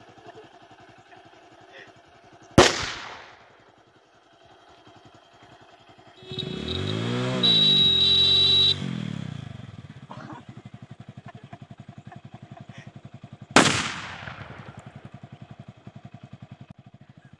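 Two loud firecracker bangs about eleven seconds apart; the second is set off by a homemade electric fuse powered from a motorcycle's horn wiring. Between them the motorcycle engine revs up and down while its horn sounds for about a second, and the engine then idles.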